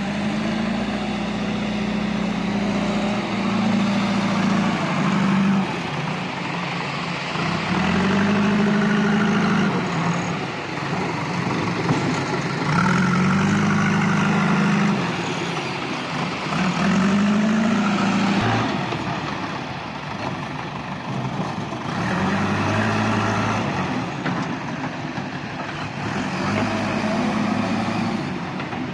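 JCB backhoe loader's diesel engine running, revving up and easing off every few seconds as the hydraulics work the loader bucket.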